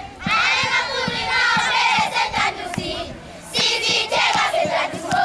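A group of schoolgirls singing together loudly, over a steady low beat of about three to four thumps a second.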